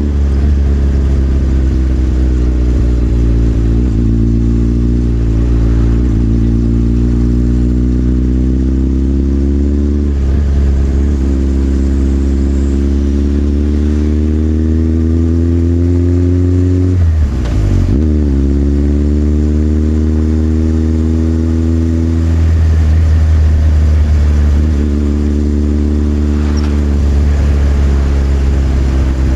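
Motorcycle engine running under way, its pitch climbing slowly through long pulls and dropping back at gear changes, with a brief dip and rise about two-thirds of the way through.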